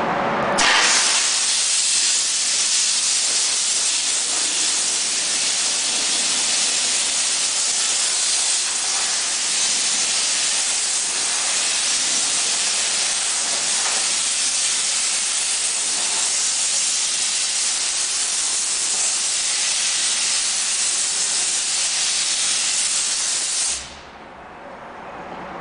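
A high-pressure steam cleaner's wand jetting steam in a loud, steady hiss. It starts about half a second in and cuts off sharply near the end.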